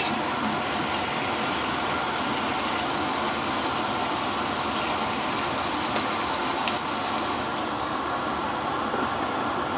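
Chicken wings sizzling steadily in teriyaki sauce in a non-stick frying pan.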